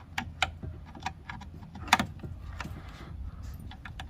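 A small hand tool clicking and scraping in a glue-filled screw head on a plastic arm rest, picking the glue out so the screw can be turned. Irregular light clicks and short scrapes, with one louder click about two seconds in.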